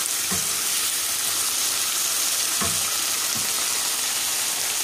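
Diced chicken with red onion and tomato sizzling steadily in a pan cooked without oil, stirred with a wooden spoon, with a few short soft knocks.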